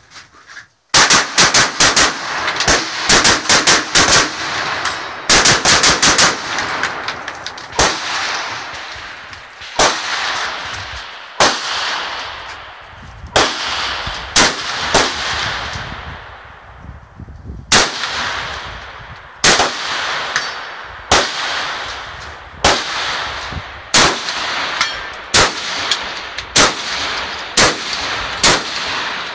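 Semi-automatic rifle fired in rapid strings for the first several seconds, then single shots every second or two, each trailing off in a long echo.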